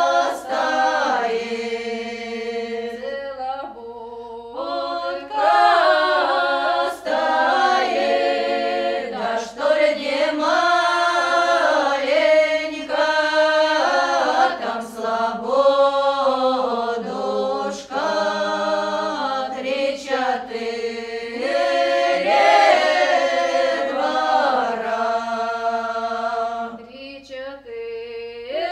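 Unaccompanied choir singing a slow song in several parts, holding long chords that shift every second or two.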